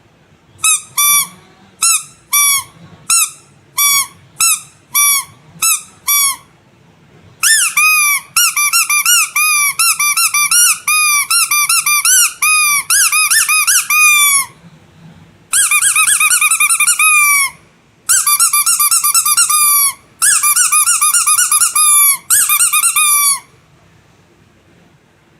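Squeaky animal toy squeezed by hand, each squeeze giving a pitched squeak that bends in pitch. First come about ten single squeaks spaced half a second or so apart; from about seven seconds in, a fast run of squeezes lasts several seconds, followed by three more quick runs with short gaps between them.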